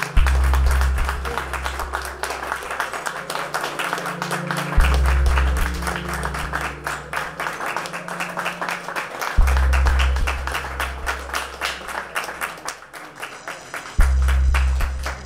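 A crowd applauding, with music over it: a deep bass note struck about every four and a half seconds, each one dying away under a slow melody.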